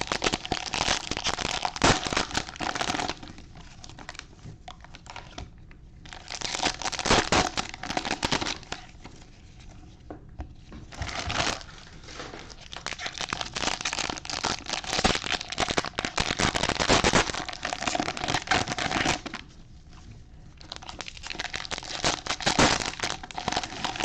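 Plastic wrapping on trading-card packs crinkling and tearing as it is opened by hand, in four bursts with short pauses between them.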